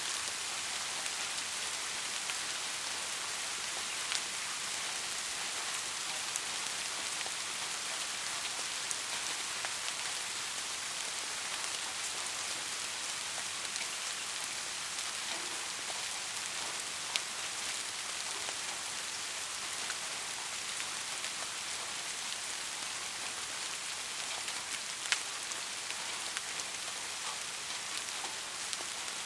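Steady rainfall, an even hiss with individual drops ticking sharply now and then, two of them a little louder.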